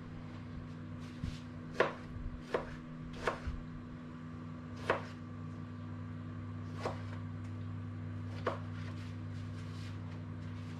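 Kitchen knife dicing tomatoes on a plastic cutting board: a series of sharp, unevenly spaced chops, quicker in the first half and sparser later, over a steady low hum.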